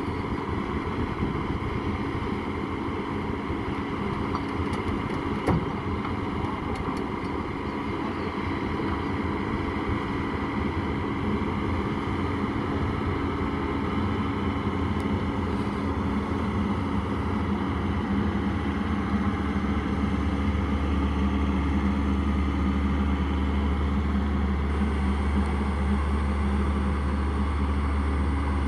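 Komatsu hydraulic excavator's diesel engine running steadily under load while the machine works on a steep truck bed. A deeper, stronger low hum comes in about two-thirds of the way through.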